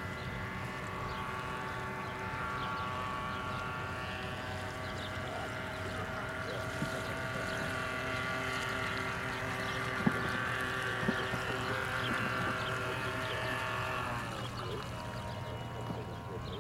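Radio-controlled scale mahogany runabout's motor whining steadily at speed over water noise. Its pitch drops a little past three quarters of the way through as the boat slows, with a sharp tick about ten seconds in.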